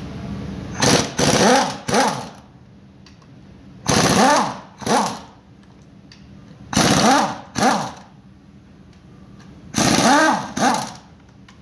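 Pneumatic wrench spinning bolts out of a Mercedes Actros gearbox housing, in short spurts of about half a second in four clusters of two or three, each spurt rising and falling in pitch.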